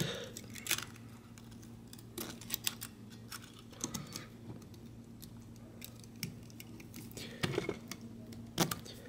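Scattered small metallic clicks and scrapes from pliers and a screwdriver forcing coil springs into the brush holders of a car starter motor's brush plate, under a faint steady low hum.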